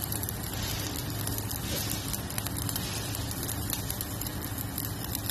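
Stick-welding arc crackling steadily as a rod burns down while a bead is run, with a constant low hum underneath.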